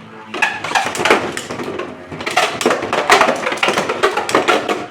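Two 3D-printed Beyblade tops spinning and colliding in a stadium: a dense, irregular run of sharp clacks and rattles from their repeated hits.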